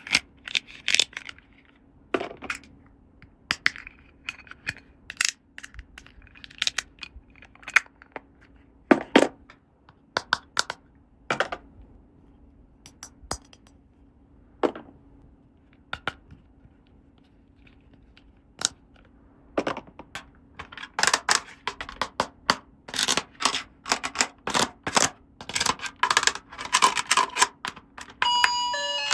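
Small plastic toy pieces being handled, set down and fitted together: scattered sharp clicks and taps, becoming a rapid run of clicking in the last third.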